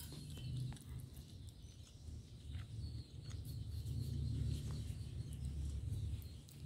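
Close-miked chewing and mouth sounds of someone eating rice and side dishes by hand, with a few small clicks of fingers and food on the plate.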